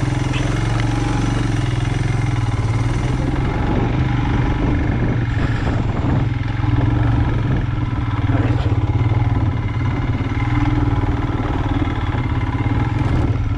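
Royal Enfield Himalayan motorcycle's single-cylinder engine running steadily under load as it climbs a rough off-road hill track carrying two riders.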